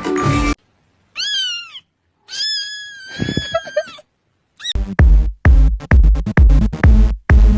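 Background music stops abruptly, then a cat meows twice: a short call that rises and falls, then a longer drawn-out one. About five seconds in comes a fast run of about eight loud, deep thuds, like a hard electronic beat.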